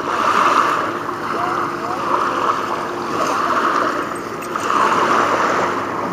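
Small lake waves lapping and washing onto a sandy shore, swelling and fading every couple of seconds.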